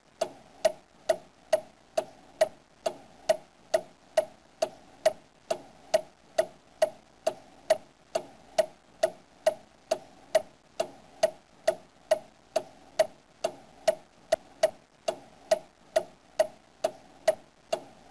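Steady clock ticking, a little over two ticks a second, each tick with a short ringing note.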